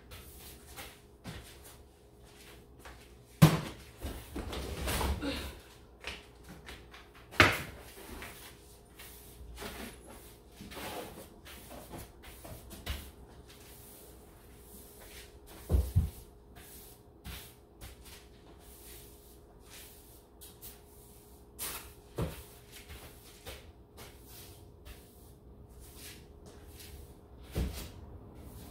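Household tidying sounds: scattered knocks and bumps of objects being handled and set down, a few sharper thumps, and a longer rustling noise about four seconds in. A faint steady hum sits underneath.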